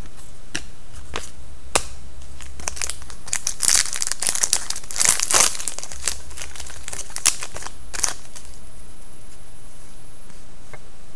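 Foil trading-card pack wrapper crinkling and tearing as a pack is opened by hand: scattered crackles that thicken into a dense flurry in the middle few seconds, then thin out.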